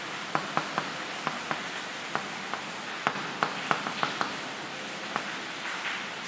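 Chalk writing on a chalkboard: a quick, uneven run of light taps and short scratches as letters are written, over a steady background hiss.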